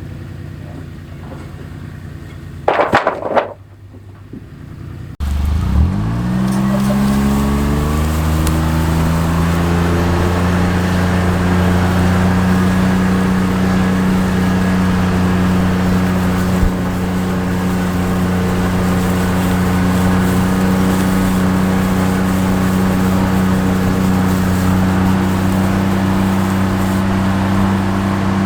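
A brief loud burst near three seconds, then, after a sudden change about five seconds in, a vehicle engine speeding up over a few seconds and then running at steady revs.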